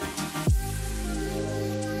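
Background music: a beat with drum hits and a deep falling bass note ends about half a second in, giving way to soft, held chords.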